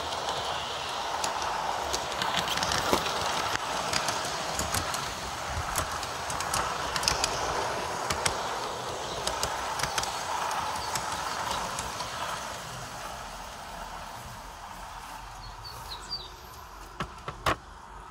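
Aristo-Craft G-scale 2-8-2 Mikado model locomotive running on its metal garden-railway track on a break-in run: a steady rolling rumble of wheels and drive with frequent sharp clicks. It fades as the engine moves away in the second half, leaving a few separate louder clicks near the end.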